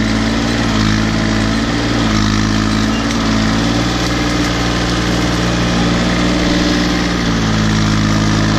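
Case 235 compact tractor's engine running steadily while the tractor drives through brush, its pitch shifting slightly about two seconds in and again about seven seconds in.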